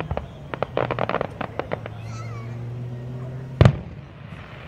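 Fireworks: aerial shells burst in a rapid run of crackling pops, then a single loud boom from a shell bursting about three and a half seconds in. A low steady hum runs underneath.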